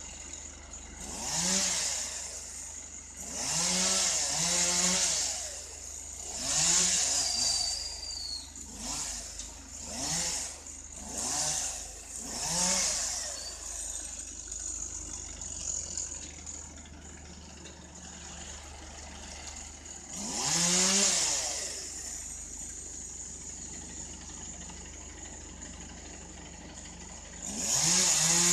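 Small chainsaw revved in short bursts, about nine in all, each rising and falling in pitch as it cuts branches. The longest pause falls in the middle, and a steady low engine hum runs underneath.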